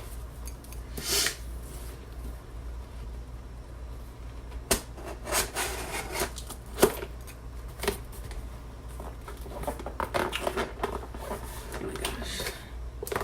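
Taped box being opened by hand: packing tape being cut and pulled away, with rustling and scraping of the packaging and scattered sharp clicks and knocks.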